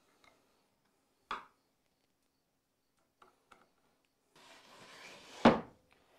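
Wooden drawer boards being handled on a wooden workbench top: a single knock about a second in, a few light clicks, then a board scraping across the wood that ends in a loud thud near the end.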